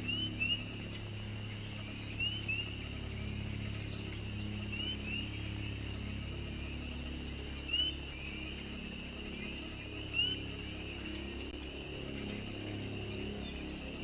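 Wild nature ambience: short, high, rising peeps come singly or in pairs every couple of seconds over a faint continuous high chorus and a low steady hum.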